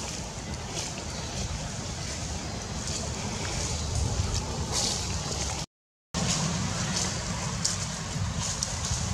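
Outdoor ambience: a steady low rumble with hiss and scattered faint crackles. The sound cuts out completely for about half a second just after the middle.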